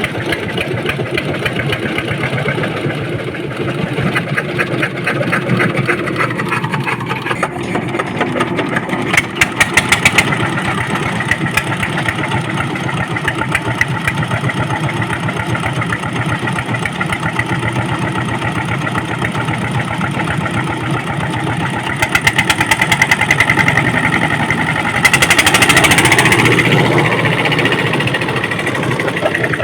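An engine running with a fast, even firing beat, revved up in short stretches a few times, the pitch sliding as the speed changes.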